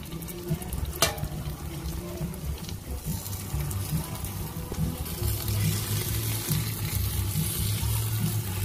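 Curry leaves and spice paste frying in hot oil in a stainless steel pot, a steady sizzle that grows louder from about halfway, with a single sharp knock about a second in.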